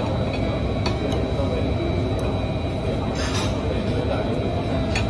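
Restaurant ambience: a steady low rumble of background voices and room noise, with a few light clinks of a knife and fork against a plate as pancakes are cut.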